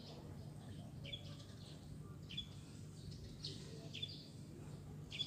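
A small bird giving short, high chirps, about five of them roughly a second apart, over a low steady background hum.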